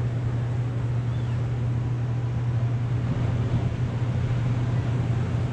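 Seaside ambience: a steady low rumble under an even wash of wind and distant surf.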